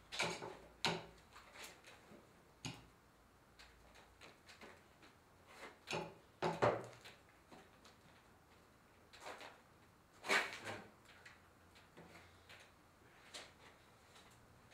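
Scattered short knocks and scrapes, a few seconds apart, of a fork and a plastic cup jerked about and knocking on a wooden table and plate as the eater's arms are yanked by ropes. The loudest come about six and ten seconds in.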